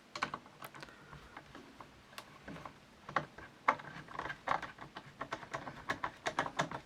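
Irregular light clicks and taps of small rifle parts being handled and fitted during reassembly of a Berthier, growing busier in the second half.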